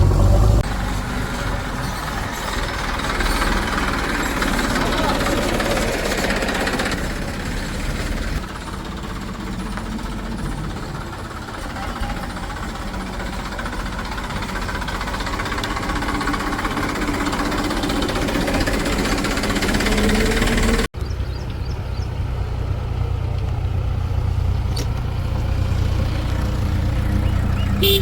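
Diesel engines of a backhoe loader and tractors running steadily at work. The sound cuts out for an instant about twenty-one seconds in, then carries on.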